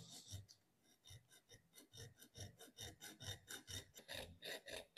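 Junior hacksaw cutting 22 mm copper pipe with slow, light strokes: a steady rhythm of short scraping strokes, faint at first and growing louder after about a second.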